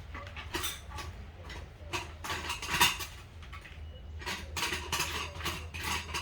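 Gumball machine and stand parts being handled and fitted together by hand, with irregular clinks, knocks and rattles. The loudest knock comes about three seconds in.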